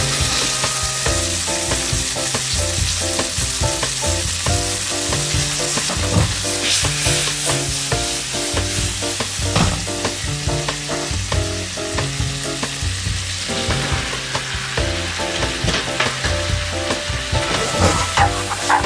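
Food frying and sizzling in a hot pan, stirred as it cooks, over steady background music.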